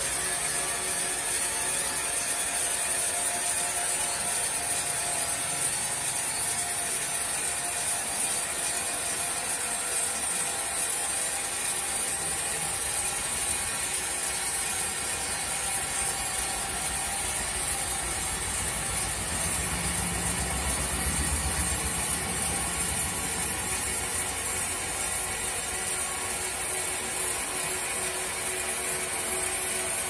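Sawmill machinery running steadily: electric motors and the big saw wheel turning as a squared timber block is carried along on the rail carriage, with a brief low rumble about two-thirds of the way through.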